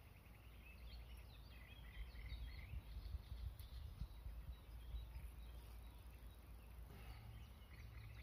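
Faint outdoor ambience of small birds chirping and singing in the reeds and trees, over a steady low rumble.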